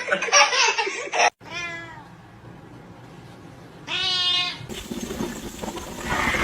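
A cat meowing twice: a short meow that falls in pitch about one and a half seconds in, then a second, stronger meow a couple of seconds later.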